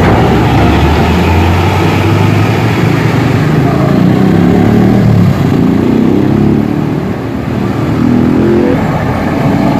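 Heavy road traffic passing close by: a diesel dump truck rumbles past first, then motorcycles and scooters accelerate by, their engine notes rising.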